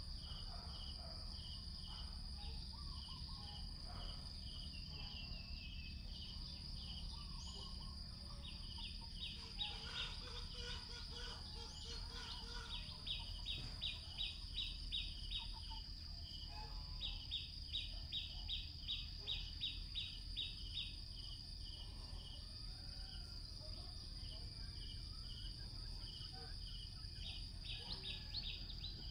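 Insects calling: a steady high drone, a short chirp repeating about twice a second, and through the middle several louder runs of rapid chirping, over a low background rumble.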